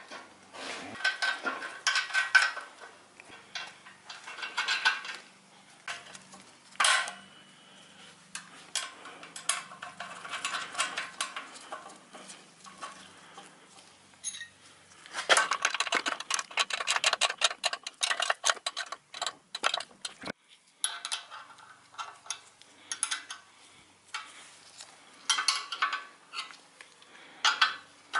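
Metal clinks and clicks of an exhaust header pipe, its flange bolts and hand tools being fitted onto the engine's cylinder head, with a quick run of rapid ticks for several seconds around the middle.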